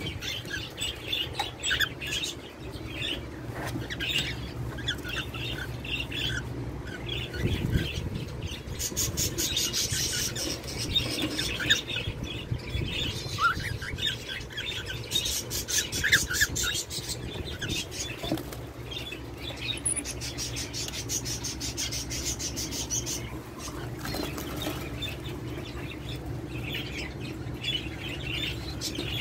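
Caged birds, among them cockatiels, flapping their wings in quick flutters, with two longer bouts about a third and two thirds of the way through, and short chirps and calls in between.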